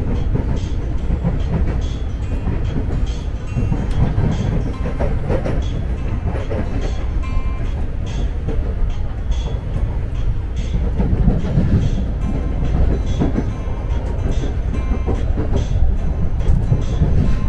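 KRL Commuter Line electric train running on the rails: a steady low rumble with light, evenly spaced clicks about every two-thirds of a second.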